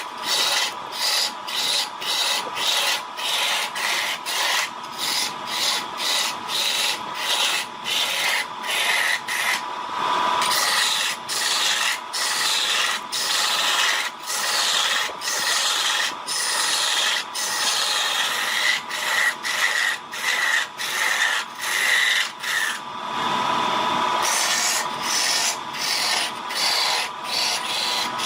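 Wood being scraped or abraded by hand in quick back-and-forth strokes, about two a second, with a faint steady whine underneath.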